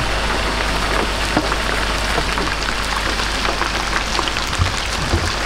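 Battered skewers deep-frying in hot oil: a steady sizzle full of small crackles and pops, over a low hum.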